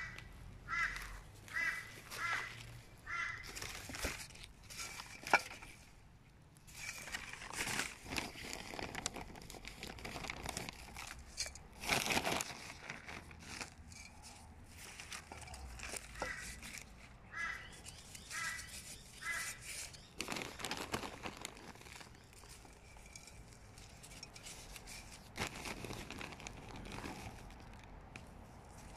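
Crinkling plastic and rustling soil as gloved hands work potting mix into terracotta pots. There are irregular handling noises throughout, the loudest about halfway. Twice, a bird in the background gives a run of four or five short, evenly spaced calls: once at the start and again past the middle.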